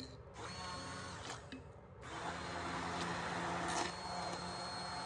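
Electric immersion (hand) blender running in a pot of soup, pureeing it: a steady motor whine that grows louder about two seconds in.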